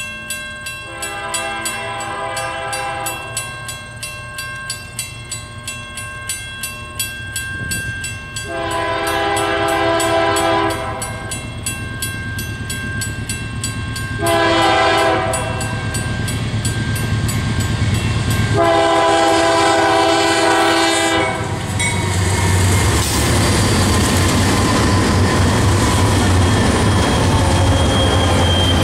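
Diesel freight locomotive horn blowing the grade-crossing signal: long, long, short, long. A crossing bell ticks steadily under the first three blasts. After the last blast the locomotives pass close by with a loud engine and wheel rumble, and crude-oil tank cars follow, clattering over the rails.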